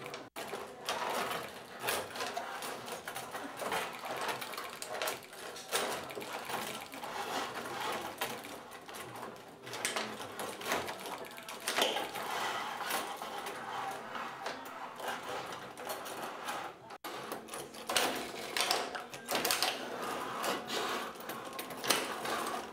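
Tabletop rod hockey game in play: an irregular, continuous clatter of the players' rods turning and sliding, with sharp clicks and knocks of the puck against the figures and boards.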